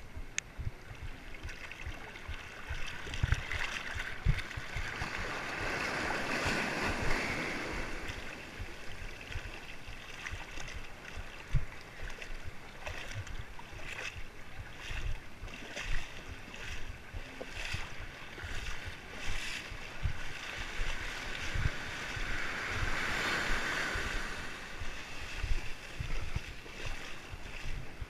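Small waves washing and sloshing in the shallows, heard from a camera right at the water's surface. Two bigger washes swell up and fade, about six and twenty-three seconds in, with frequent low knocks as water slaps the camera.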